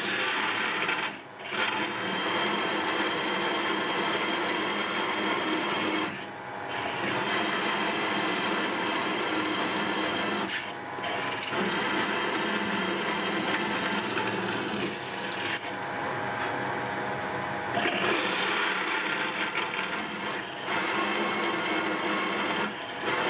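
A 6.5 mm twist drill boring through-holes in a steel plate, running steadily and cutting chips, with several short dips in the noise.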